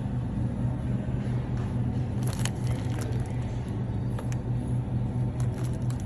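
A steady low hum with a few light clicks and taps scattered through it.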